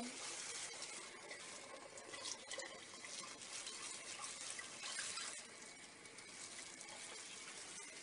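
Milk poured from a bowl into a saucepan on the stove: a faint, steady pouring of liquid.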